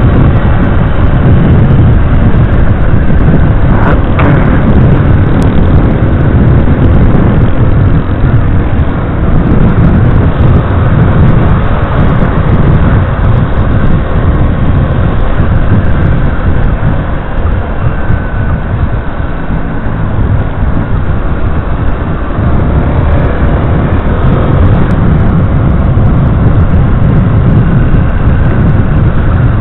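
Yamaha Crosser 150's single-cylinder four-stroke engine running steadily as the motorcycle rides along, mixed with heavy wind rush on the microphone.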